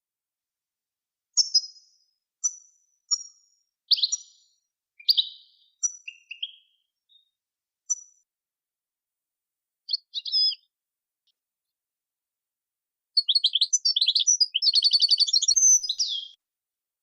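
Recorded songbird song from a song-training tape: scattered short, high chirps and whistles, then after a pause a fast, dense run of twittering trills that stops shortly before the end.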